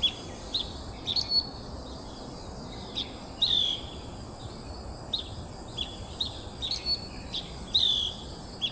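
Birds chirping in short, repeated notes, some slurring downward, a few each second at uneven intervals, over a steady high-pitched cicada drone.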